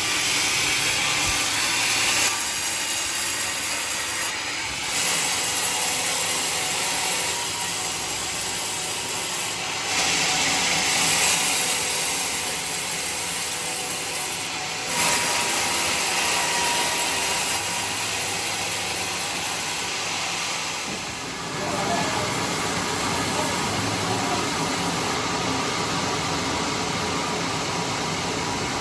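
Band sawmill running with its blade cutting through a log: a continuous hissing saw noise that shifts in level and tone every few seconds.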